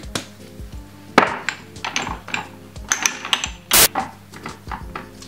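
Kitchen handling sounds: a run of light clicks and knocks from a seasoning jar and utensils being handled on the worktop. The sharpest knock comes about a second in, and there is a short burst of noise near four seconds.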